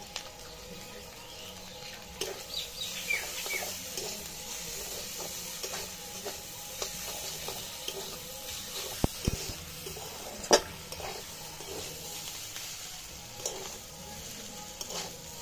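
Chowmein noodles and vegetables sizzling in a wok as a metal spatula stirs and scrapes through them, with repeated small clinks against the pan and a sharper clank about ten and a half seconds in.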